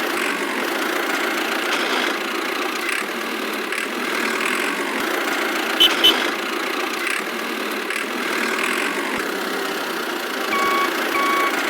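Miniature DIY bulldozer running steadily with an engine-like sound, with two short clicks about six seconds in. Near the end a reversing alarm beeps about three times.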